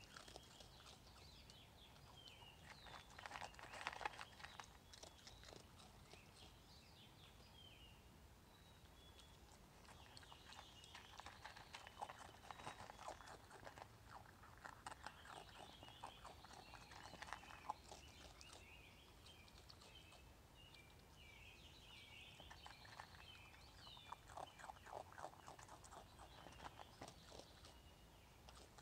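Raccoon chewing crunchy food from a plastic tub: faint spells of quick, clicky crunching with quieter pauses between.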